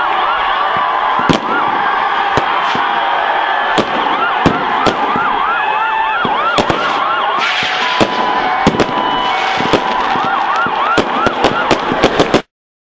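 Crowd of football fans noisily celebrating a win. A siren-like whooping tone rises and falls several times a second, and sharp cracks like firecrackers go off throughout, thickest near the end. The sound cuts off suddenly near the end.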